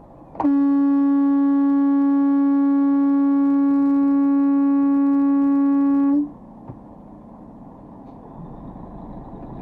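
A vehicle horn sounded in one long, steady blast of about six seconds, starting about half a second in and cutting off suddenly: a warning to pedestrians standing in the road to move.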